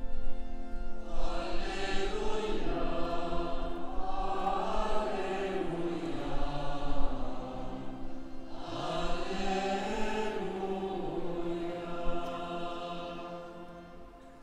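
Liturgical chant sung by a choir, in long phrases over held chords; it fades away over the last couple of seconds.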